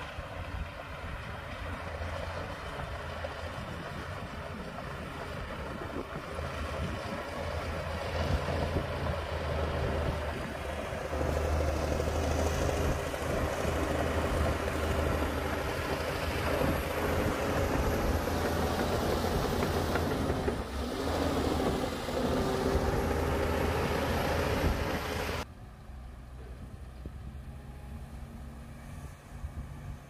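Bulldozer's diesel engine working under load with a steady low hum, growing louder about ten seconds in; near the end it drops off sharply to a quieter running sound.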